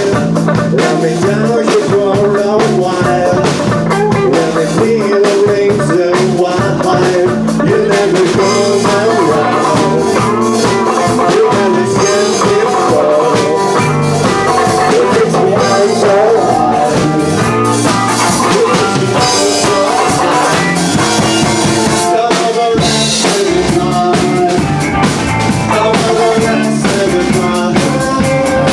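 Live band playing a song on electric guitars and drum kit, with a man singing into the microphone at times.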